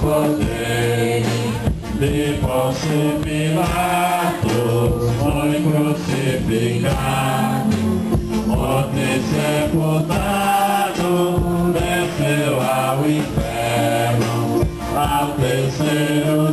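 A congregation singing a hymn together.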